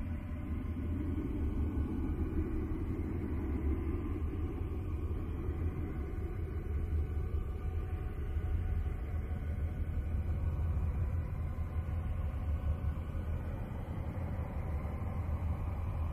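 Spacecraft-recorded electromagnetic vibrations converted into sound: a deep, steady rumbling drone with faint held tones above it. A higher rushing band swells in at the start and fades within about five seconds.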